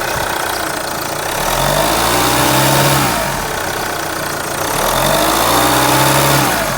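B20DTH diesel engine running under the bonnet and revved up twice from idle, each rise held briefly before dropping back, with a droning note that rises and falls with engine speed.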